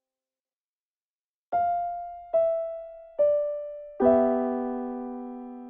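Solo piano music: after a short silence, three single notes stepping down in pitch, then a chord struck about four seconds in that rings on and slowly fades.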